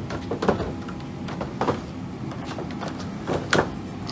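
Wooden 2x4 sawhorses knocking and clattering as they are handled and stacked on top of each other: several sharp wood-on-wood knocks, over a steady low hum.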